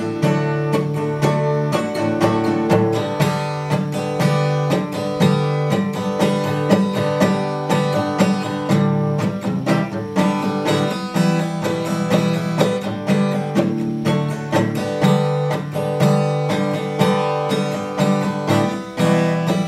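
Acoustic guitar strummed steadily in chords, with the chord changing every couple of seconds: an instrumental break between sung verses.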